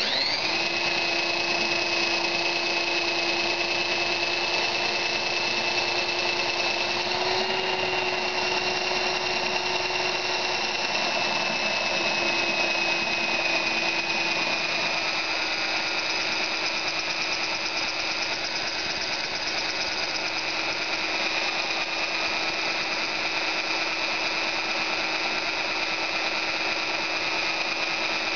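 Electric drill motor starting abruptly and running continuously with a steady high whine, its pitch sagging slightly now and then.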